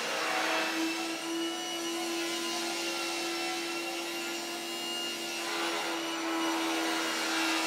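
Thickness planer running with a steady whine, planing a glued-up wooden panel down to its final thickness. The hiss of the cut eases about five and a half seconds in while the machine keeps running.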